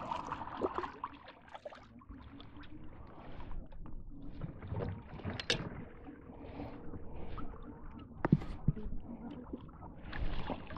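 Water sloshing against a small fishing boat, with scattered knocks and clicks, the sharpest about five and a half and eight seconds in.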